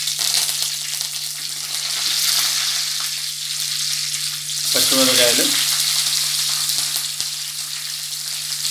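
Curry leaves sizzling and spluttering in hot oil during a tempering (tadka). The sizzle swells about five seconds in, as chopped green chillies are dropped into the oil.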